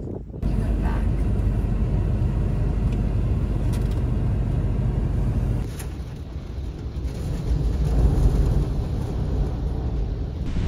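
Steady rushing noise of wind buffeting the microphone, mixed with water pouring from a waterfall that falls off a cliff onto a roadside. The sound changes abruptly about half a second in and dips for a moment near six seconds.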